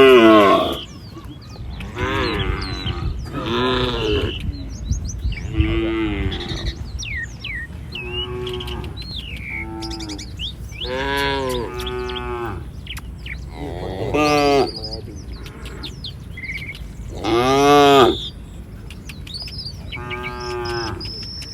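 Cattle mooing repeatedly, about nine calls one after another, some drawn out and some short, with the loudest near the start and about three-quarters of the way through.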